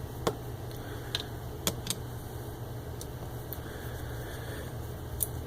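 About seven scattered sharp metallic clicks and taps as screws are taken out of a metal hard drive caddy with a Phillips screwdriver and handled. They sound over a steady low hum.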